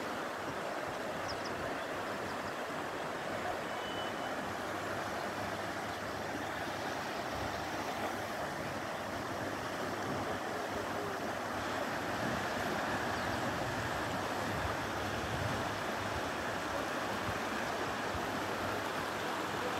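Steady rush of a shallow mountain river flowing over a stony bed, an even hiss of water with no break.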